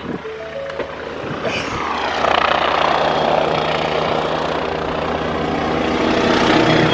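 Helicopter rotor and engine, a steady low hum with a rushing noise that grows louder from about two seconds in.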